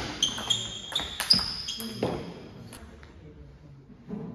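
Table tennis rally: the ball knocks off bats and table about seven times in under three seconds, each hit leaving a short high ring. It goes quieter near the end.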